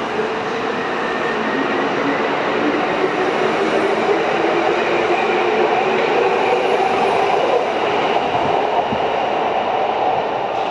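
Kintetsu 21000 series Urban Liner plus electric express train pulling out of an underground station. Its traction motors give a whine that slowly rises in pitch as it speeds up, over a steady rumble of wheels on rail.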